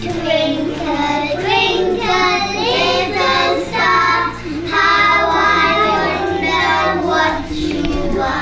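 A small group of young children singing a song together.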